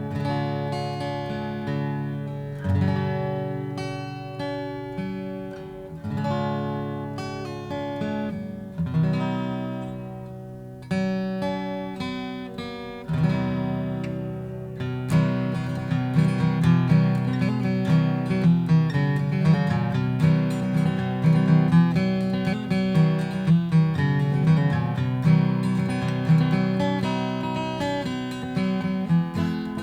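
Rosewood Gibson J-45 Deluxe acoustic guitar played with a pick: single chords struck and left to ring out, fading between strikes, then quicker, busier strumming from about halfway through.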